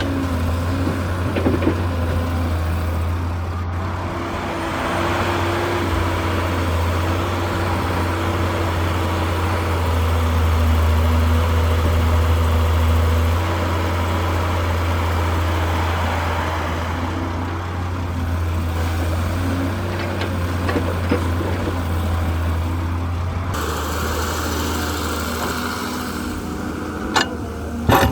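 Heavy diesel engine of an earth-moving truck or excavator running steadily, its pitch shifting in small steps every few seconds, with a couple of sharp knocks near the end.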